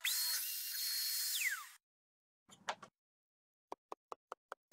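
Router motor whining up to speed and running for under two seconds, then cut off abruptly. Later come a short clatter and a run of light ticks, about five a second, each a little higher in pitch than the last.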